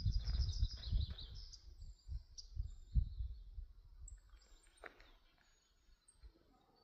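Small birds chirping: a quick descending run of chirps near the start, then scattered short, thin high calls. Under them are low, irregular thuds that die away over the first few seconds.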